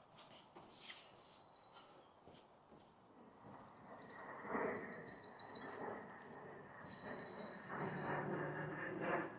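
Small songbirds singing short, high, rapidly trilled phrases several times over, over a background of outdoor noise that grows louder in the second half.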